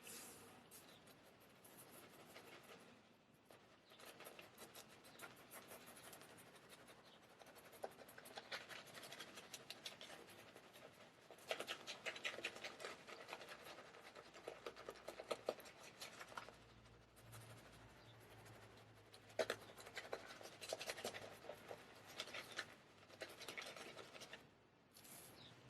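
Straight razor shaving through lathered stubble: faint crackling, scratching strokes of the blade cutting whiskers, in several runs of a few seconds each.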